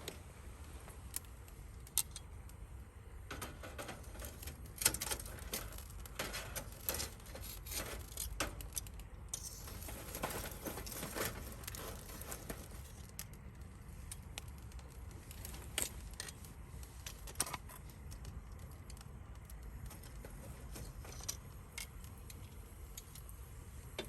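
Wood fire crackling, with scattered sharp pops and snaps over a low steady rumble; the popping comes thick and fast for several seconds in the middle, then thins out again.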